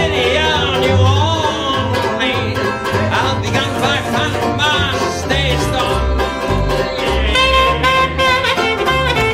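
Acoustic band playing an instrumental break: an alto saxophone carries a bending melody line over strummed banjo and a plucked upright double bass.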